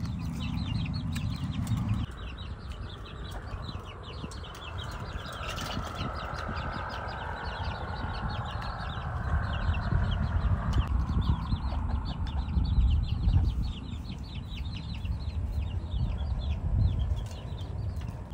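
Chickens clucking amid a steady train of rapid, high-pitched chirps, over a low rumbling background noise.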